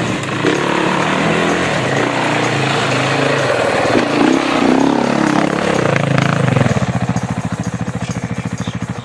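Motorcycle engine running and changing pitch, settling into a fast, even pulsing like an idle near the end, with music underneath.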